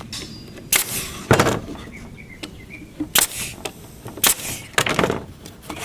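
A pneumatic nail gun firing about six times at irregular intervals, each shot a sharp crack with a short hiss, fastening 3/4-inch plywood pieces of a cabinet-style box.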